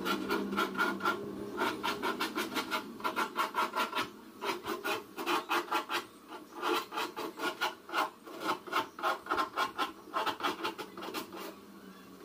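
Hand file scraping along the edge of a high-pressure laminate (HPL) sheet glued to a plywood cabinet top, trimming it flush. Quick back-and-forth strokes, about three a second, come in several runs with short pauses and stop shortly before the end.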